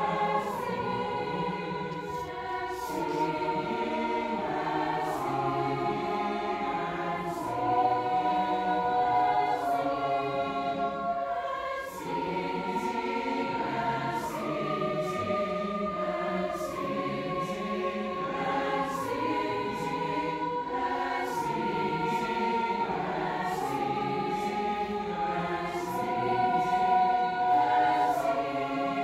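Large high-school choir singing in parts, holding long chords that shift every few seconds, with a light, regular high tick keeping a steady beat.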